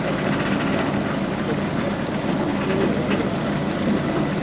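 Moored car ferry Ferry Kudaka III with its engines idling: a steady low hum under an even rushing noise.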